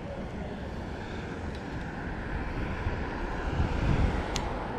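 Street ambience: a low, steady rumble of traffic with wind noise on the microphone, swelling a little past the middle, and two short clicks near the end.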